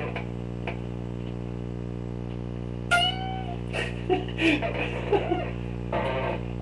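Electric guitar through an amplifier: a steady amp hum, with a few quiet picked notes and one ringing note about three seconds in.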